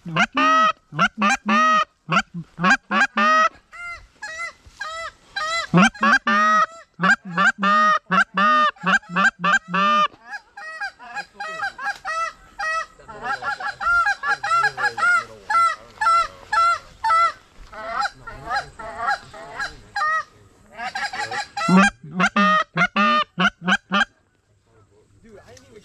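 Geese honking, many rapid calls overlapping one another, stopping abruptly about two seconds before the end.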